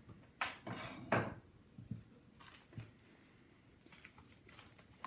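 A glazed ceramic plate set down on a wooden table: a few light knocks in the first second, followed by faint scattered handling noises.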